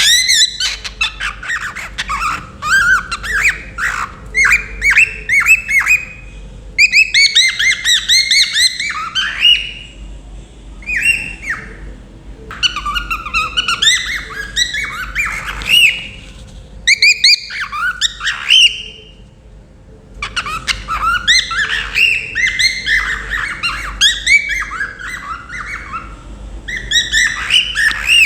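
Pet cockatiel whistling and chirping loudly in quick runs of sliding, rising and falling notes, broken now and then by short pauses. These are the busy calls of a contented bird.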